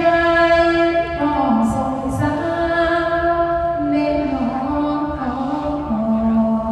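Mor lam singing: a single voice holds long, steady notes of about a second each, stepping from pitch to pitch, over a faint steady low drone.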